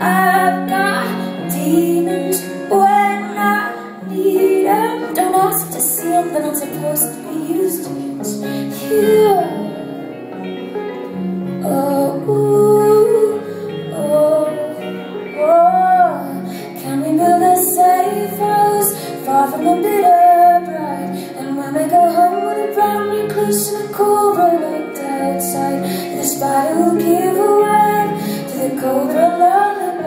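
A woman singing a slow song live, her melody gliding and bending, with acoustic guitar accompaniment.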